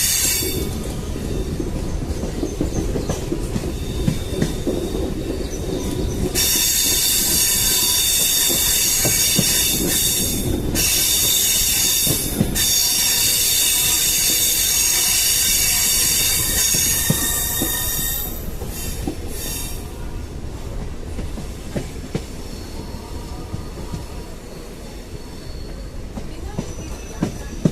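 MEMU train's wheels squealing against the rails on a sharp curve. A high, many-toned screech sets in about six seconds in, holds for about twelve seconds with two brief breaks, then fades. Under it runs a steady rumble of wheels on the track.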